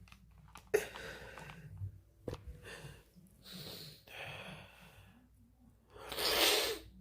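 A man breathing and sighing close to the microphone: a few soft breaths, a couple of faint clicks, then a louder exhale near the end.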